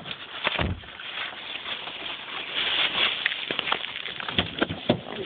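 Small hail or ice pellets pattering and crackling, with a steady scatter of sharp little clicks and a low thump about half a second in.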